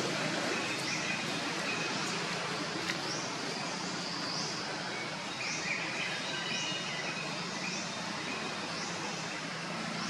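Outdoor forest ambience: a steady hiss of background noise with a bird repeating a short high chirp about once a second, plus a few brief whistled notes.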